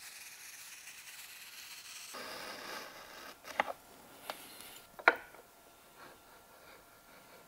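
Star-M hand edge trimmer scraping along the edge of ABS edging banding with a steady hiss as it shaves off a thin strip. It is followed by a few sharp clicks, the loudest about five seconds in.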